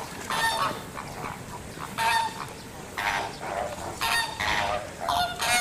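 A flock of flamingos honking, with a loud burst of overlapping calls about once a second.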